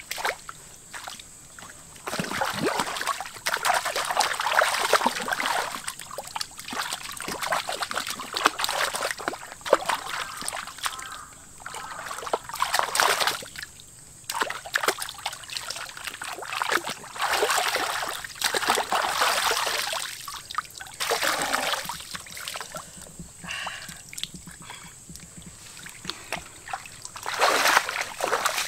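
Water splashing and sloshing in irregular bursts, each a second or two long, as someone moves or works in shallow water.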